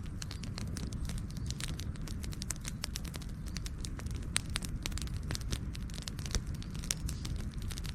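Wood campfire crackling: many irregular small pops and snaps, a few sharper and louder, over a steady low rumble.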